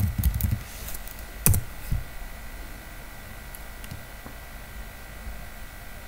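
Typing on a computer keyboard: a few quick keystrokes, one harder key press about a second and a half in, then only a faint steady hum.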